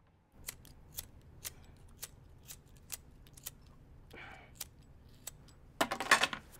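Sharp single clicks, evenly spaced about two a second, then a louder rapid flurry of clicks near the end.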